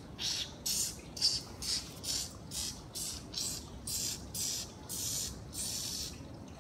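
A screwdriver's metal shaft rubbing back and forth through a tabby cat's fur, making a regular scratchy rasp of about two strokes a second.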